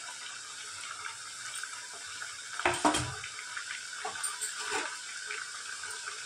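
Mathri dough rounds frying in hot oil on a medium-to-low flame: a steady bubbling sizzle. A few louder clicks come about three seconds in.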